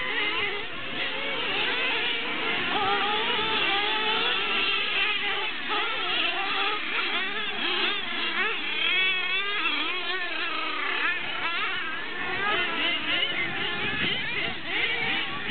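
Several radio-controlled race trucks running at once, their motors revving. Many overlapping pitches rise and fall as the trucks accelerate and brake around the course.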